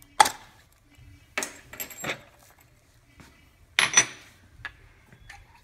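A metal tool and retaining pin clinking and rattling against a clear plastic valve body as the pin is worked out and the dispense tube is slid free: one sharp clink just after the start, a few lighter clinks around one and a half to two seconds in, another clink about four seconds in, then small ticks.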